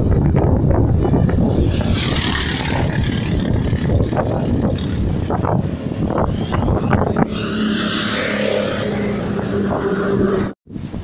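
Motorbike ride with the engine running and wind buffeting the microphone, plus some passing traffic. The sound cuts out suddenly for a moment near the end.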